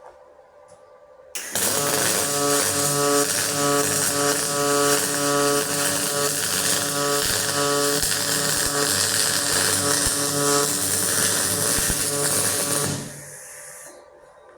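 MIG welder running a bead on an aluminium fuel tank: a steady crackling arc hiss with a hum that pulses about twice a second. It starts about a second and a half in and stops near the end.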